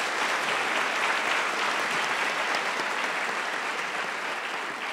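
Audience applauding, a steady dense clapping that dies down near the end.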